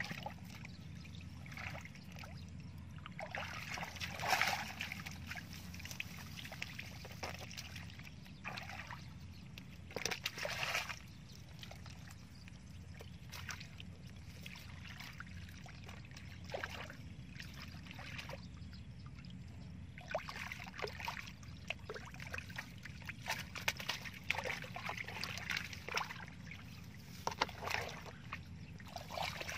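Shallow muddy water splashing and sloshing in irregular bursts as someone wades through it and scoops with a plastic basket, over a steady low rumble.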